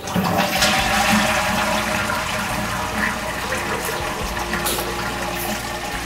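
Toilet flushing: a rush of water that starts suddenly, is loudest in the first second or so, then runs on steadily.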